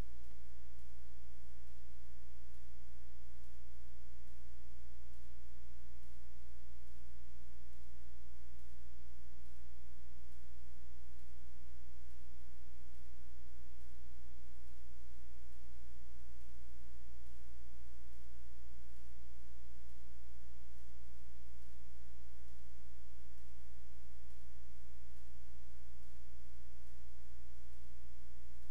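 Steady electrical mains hum: a low buzz with many overtones, unchanging and with no other events.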